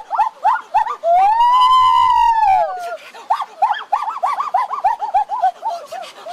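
A high-pitched voice chattering in quick, short yelping syllables, broken about a second in by one long rising-and-falling wail.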